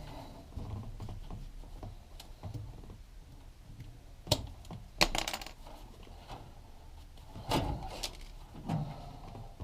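Scattered clicks and light metallic rattles of hand work on a furnace's wiring and door interlock switch, the sharpest clicks about four and five seconds in, with more near the end.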